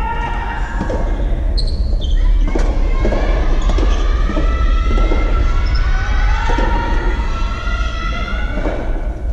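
Soft tennis play in a large indoor hall: several sharp hits, typical of racket strikes on the rubber ball, under long drawn-out shouts from voices that rise and fall in pitch.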